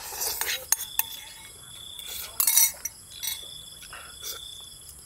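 Metal spoon clinking a few times against a ceramic bowl, with eating noises from someone eating out of the bowl; the loudest comes about halfway through. Night insects trill steadily underneath.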